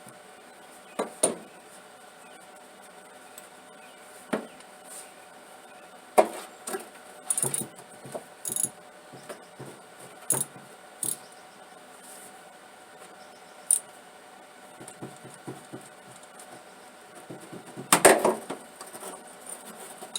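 Hand tools and small metal parts clinking and knocking now and then, sharp clicks and short clatters with pauses between, with a louder clatter near the end.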